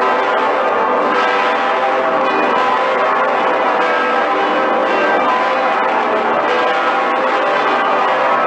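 Cologne Cathedral's great swinging bells, including St. Peter's Bell and Pretiosa, ringing together: a dense, steady wash of many overlapping bell tones.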